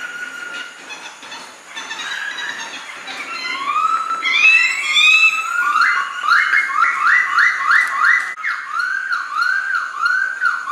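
Khướu mun laughingthrush singing a varied song of clear whistles. Rising slurred notes come about four seconds in, then a quick run of repeated notes, about three to four a second, and then a string of looping rise-and-fall whistles near the end.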